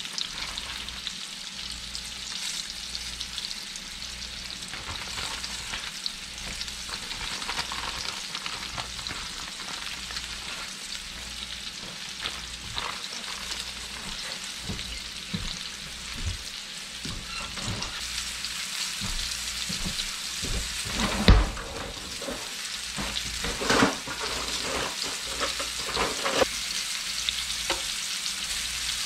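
Fish pieces sizzling steadily as they fry in a skillet. In the last third there is a run of knocks and clacks of metal tongs against the pan, the loudest about three-quarters of the way through.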